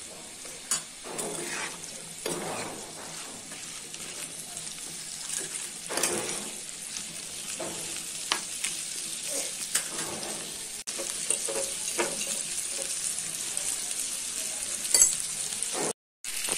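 Metal spatula stirring and scraping diced spiny gourd and pumpkin around a frying pan, with scattered knocks against the pan, over a soft, steady frying sizzle kept low by a low flame.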